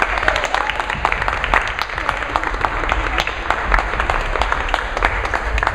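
Audience applauding: dense, steady hand-clapping.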